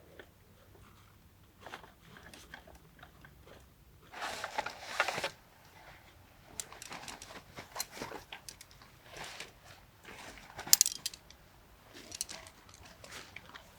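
Irregular crunching and rustling, like food or packaging being handled, with scattered clicks, a longer burst of rustling about four seconds in and a sharp click near the eleven-second mark.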